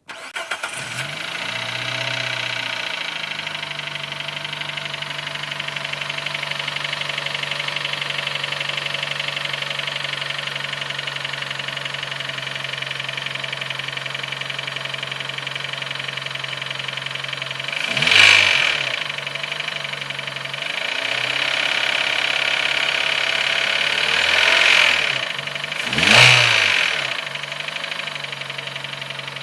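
Nissan Note's HR15DE 1.5-litre four-cylinder petrol engine starting and idling with a ringing metallic knock, blipped three times near the end, one longer rev in between. The knock appeared after the injectors and intake manifold were cleaned with carburettor cleaner spray; its cause is unknown to the owner.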